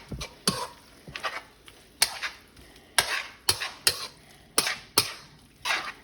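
A utensil scraping and knocking against a pan while stirring tomatoes and spinach, in sharp irregular strokes about twice a second.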